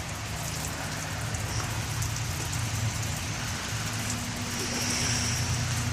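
A 2013 Polaris RZR 900 XP side-by-side coming slowly closer, its engine a low steady drone that grows gradually louder, over a steady hiss.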